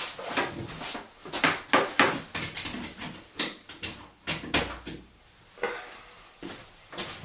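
A run of irregular knocks and clatters, about a dozen spread unevenly, with a quieter pause just past the middle.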